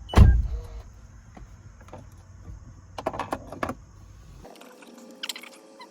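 A loud knock, then scattered clicks and rattles of handling, over the low rumble of the Toyota 4Runner running in the cabin; the rumble stops abruptly about four and a half seconds in.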